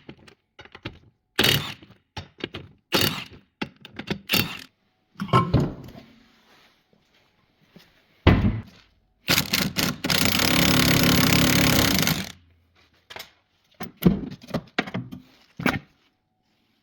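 Metal knocks and clanks from hand tools working on a Volvo S40's front suspension during a strut mount replacement, with a power tool, likely an impact wrench, running in one burst of about three seconds around the middle.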